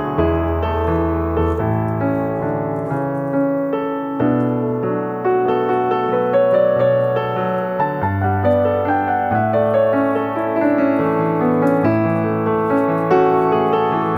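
Background piano music: sustained chords over a bass line, the notes changing every second or two.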